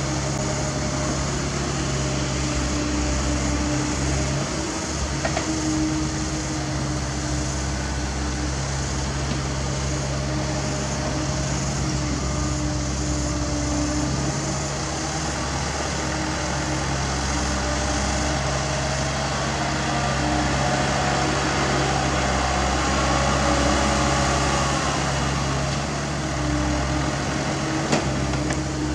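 Diesel engine of a Caterpillar mini excavator running steadily under load as it digs, with a hydraulic whine that rises and falls in pitch around the middle and a single sharp knock near the end.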